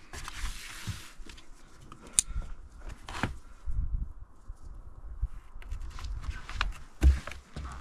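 Handling sounds from gloved hands working a snowshoe hare's fur against flattened cardboard: scattered rustles and short clicks, with a sharp click about two seconds in and a louder knock near the end.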